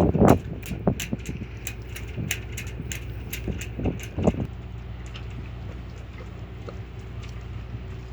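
Steady low drone of a departing ferry's diesel engines, with scattered light ticks and a few short knocks in the first half.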